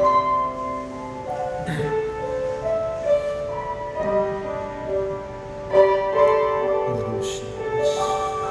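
Slow, soft instrumental music on a keyboard: long held chords under a slow-moving melody.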